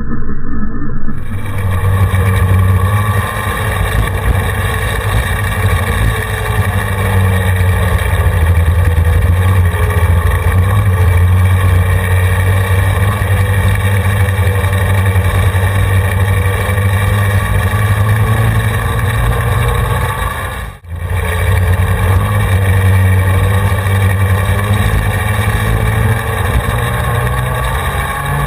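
Racing go-kart two-stroke engines running steadily, with slight rises and falls in pitch. The sound drops out briefly about 21 seconds in.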